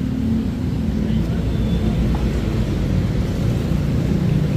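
A vehicle engine running steadily at low revs, a low, even hum.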